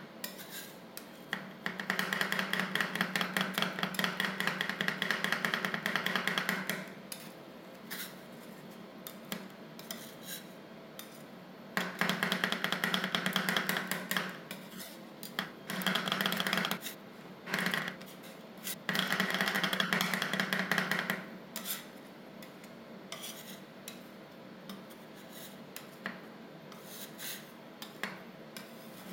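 Two steel spatulas chopping and scraping on a stainless steel ice cream cold plate, working chocolate and hazelnut pieces into the frozen ice cream base. There are four runs of fast metallic tapping, each a few seconds long, with slower taps and scrapes between them.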